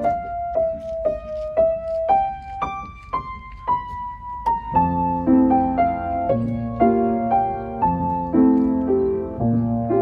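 Background piano music: a slow melody of single notes climbing step by step, joined about halfway through by a fuller accompaniment with low notes underneath.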